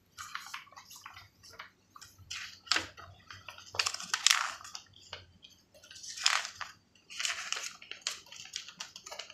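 Paper rustling and crinkling in irregular bursts as a jigsaw's instruction manual is handled, opened and its pages leafed through, loudest about four seconds in.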